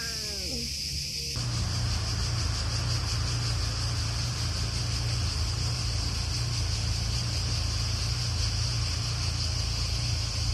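A cat's meow ends right at the start, falling in pitch. Then a steady, high chorus of insects, likely cicadas, runs on over a low rumble.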